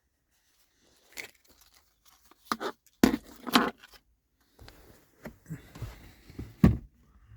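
Handling noises: irregular knocks, clicks and rustles, a cluster about three seconds in and another building to a loud knock near the end.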